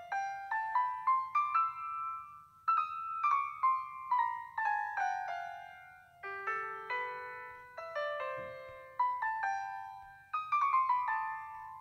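Background music: a solo piano melody of quickly struck notes running up and down.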